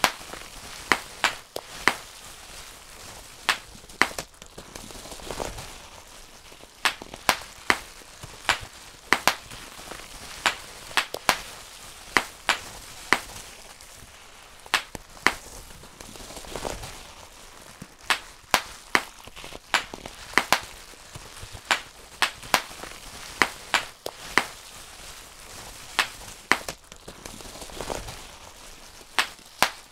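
Bubble wrap being popped by hand, bubble by bubble: sharp, irregular pops, often more than one a second and sometimes in quick pairs, with soft crinkling of the plastic sheet between them.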